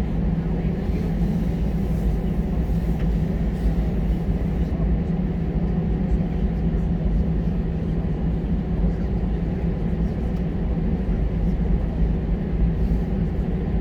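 Steady low drone of an airliner's engines and air systems, heard from inside the passenger cabin.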